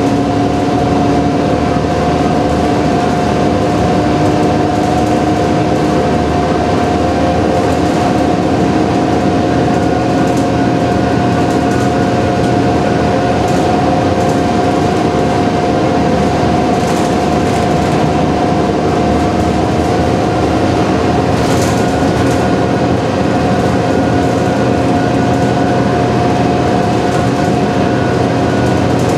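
Inside a moving transit bus: steady engine drone and road noise with a constant high whine, and a few brief light rattles.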